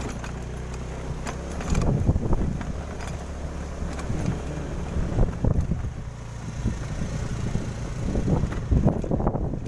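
A vehicle engine running steadily for about the first two seconds, then strong wind buffeting the microphone in irregular gusts.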